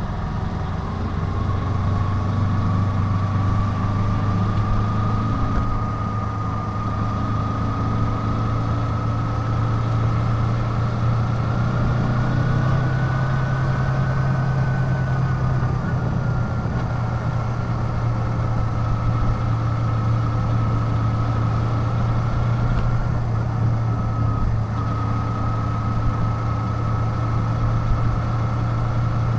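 Kawasaki Ninja 250's parallel-twin engine running steadily on the move. Its pitch rises gently over the first half, then eases back a little and holds.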